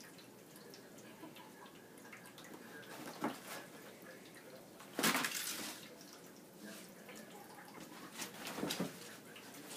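Paper towels being ripped and shredded by a Savannah cat tearing at a roll, heard as short bursts of tearing and rustling: one about three seconds in, the loudest and longest about five seconds in, and several more near the end.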